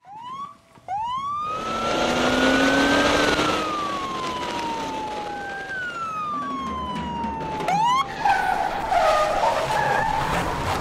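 Police siren wailing in long sweeps, its pitch rising and then slowly falling, over the noise of a car.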